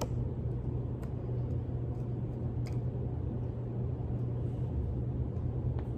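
A steady low background rumble, with a few faint ticks from playing cards being handled.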